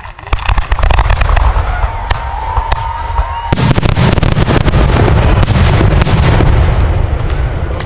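Fireworks finale barrage: rapid, overlapping shell bursts and crackles, with a steady whistle from about two seconds in, then a heavier, denser run of bursts starting about three and a half seconds in.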